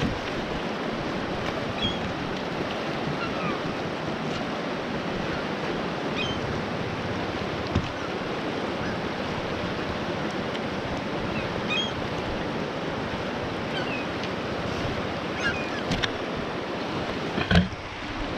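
Steady rush of a fast-flowing river, with a sharp thump near the end.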